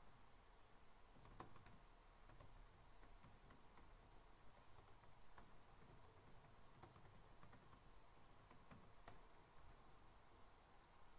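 Near silence with faint, irregular clicks of typing on a computer keyboard.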